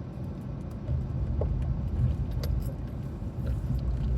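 Light metallic jingling and clicking, like a bunch of keys jangling, over a low car rumble that gets louder about a second in.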